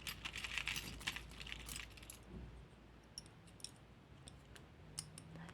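Jewellery jingling and clinking: a dense run of metallic jingles for about two seconds, then scattered single clicks.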